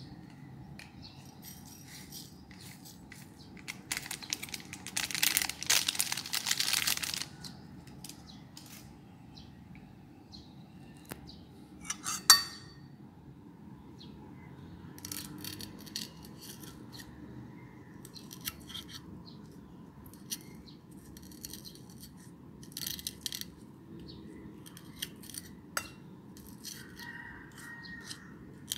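A metal spoon scraping and clinking against a glass plate as chilies are stirred through seasoning powder, in scattered short strokes through the second half. Earlier, about three seconds of rustling hiss as the powder is poured from a packet onto the plate, and a single sharp knock near the middle, the loudest sound.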